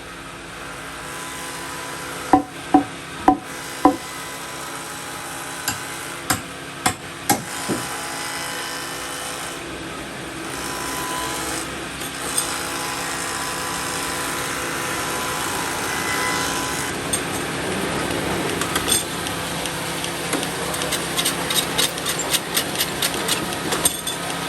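Woodshop machinery running with a steady hum. Over it come sharp knocks: four strikes about half a second apart a couple of seconds in, another few a few seconds later, and a fast clatter of clicks near the end.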